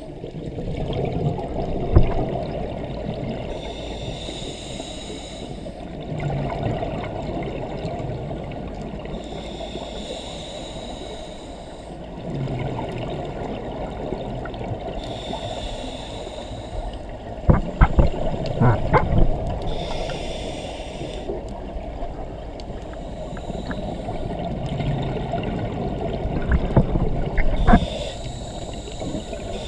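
Scuba diver breathing through a regulator underwater, heard from the camera's housing: a hiss with each inhale about every five to six seconds, and a bubbling rumble of exhaled air between them. A few sharp knocks come about two seconds in, in a cluster near the middle, and near the end.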